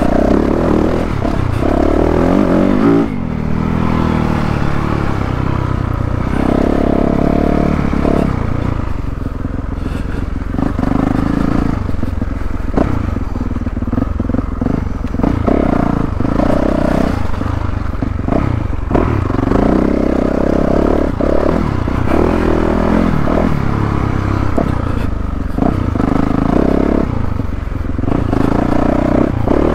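2022 Yamaha YZ450F's four-stroke single-cylinder engine revving up and falling back over and over as the throttle is worked along a dirt trail. Short knocks and clatter from the bike come through as it runs over rough ground.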